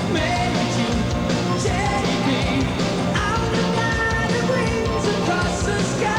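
Rock music with a steady, dense sound and a wavering melodic line.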